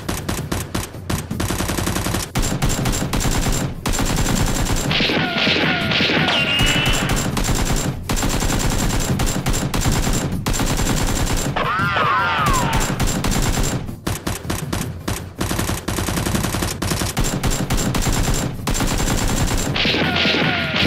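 Rapid automatic gunfire, a near-continuous stream of shots. Short wavering high tones rise and fall over it about five seconds in, around twelve seconds, and again near the end.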